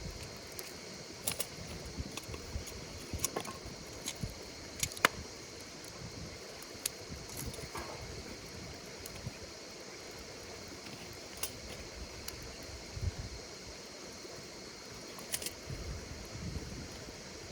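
Wood fire crackling, with irregular sharp pops and one loud pop about five seconds in, over a steady high chirring of insects.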